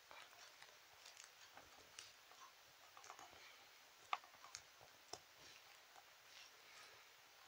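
Faint close-up handling noise: scattered soft clicks and rustles of toys being moved by hand, with a sharper click about four seconds in and another about a second later.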